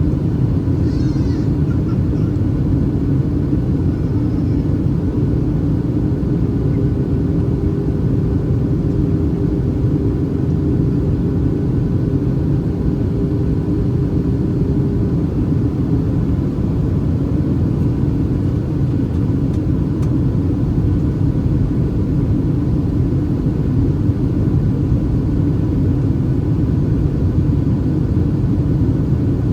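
Steady cabin noise of a Boeing 737-800 in flight, the low rumble of its CFM56-7B engines and the airflow heard from a seat over the wing. A faint steady hum sits in it for a few seconds in the middle.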